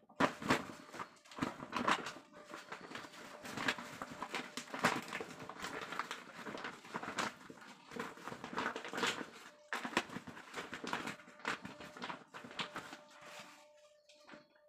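Woven polypropylene sack being handled and folded by hand, giving a dense, irregular crinkling and rustling that dies down near the end.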